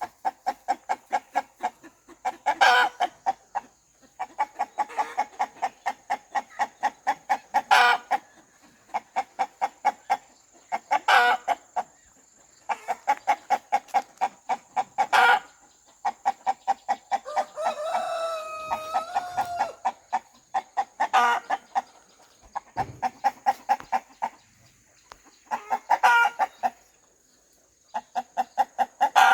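Rooster clucking in rapid runs of short clucks, several a second, broken every few seconds by a louder, sharper squawk. About two-thirds of the way through comes one longer drawn-out call that wavers in pitch.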